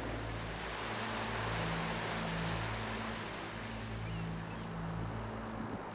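Steady rushing outdoor town ambience, with faint low tones underneath that change in steps about once a second.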